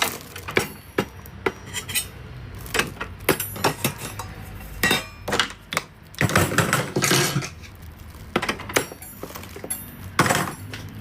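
Small toy-kitchen dishes and utensils being gathered up and put away, clinking and clattering against each other in irregular knocks.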